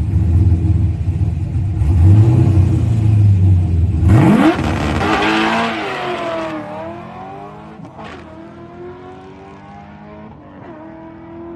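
Drag-racing car's engine rumbling loudly on the line, then launching about four seconds in with a steep rise in pitch and pulling away down the strip. The pitch climbs through the gears with a drop at each upshift, about three of them, while the sound fades into the distance.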